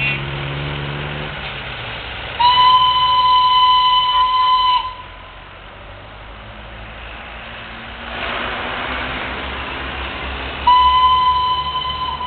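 Darjeeling Himalayan Railway toy train sounding two long, steady whistle blasts on one pitch. The first lasts about two and a half seconds; the second starts near the end. Rumbling train noise runs between them.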